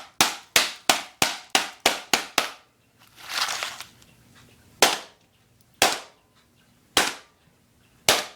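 A hammer striking a laptop. First comes a quick run of about nine sharp blows at roughly four a second, then a short scraping noise, then four single blows about a second apart, as the hard drive is bashed at to get it out.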